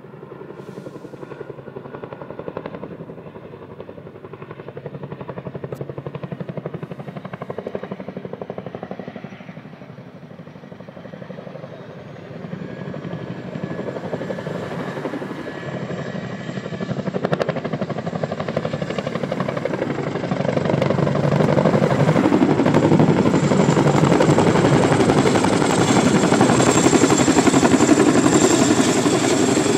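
Boeing Chinook tandem-rotor helicopter approaching to land, its rotor beat and turbines growing steadily louder as it closes in, loudest over the last third.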